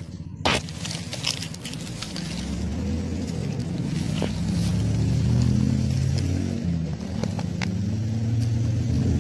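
A low engine rumble, as of a motor vehicle, that swells, wavers in pitch and dips once before rising again. A few sharp scrapes and clicks from handling in the leaf litter come near the start.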